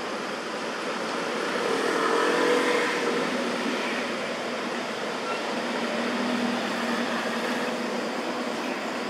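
Road traffic: motor vehicles passing on the road, the sound swelling to its loudest about two to three seconds in and easing off, then swelling a little again.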